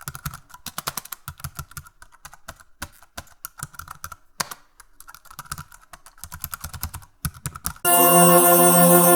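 Computer keyboard typing: quick, irregular runs of key clicks with short pauses. Near the end it gives way to a loud sustained musical chord that starts abruptly.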